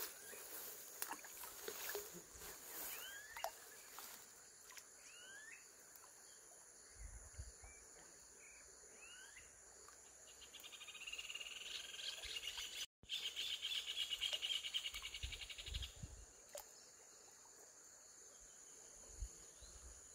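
Rural outdoor ambience: a steady high insect drone, a few short chirps early on, and a rapid pulsed trill from a calling animal lasting about five seconds around the middle. A few brief low rumbles, and the sound cuts out for an instant once.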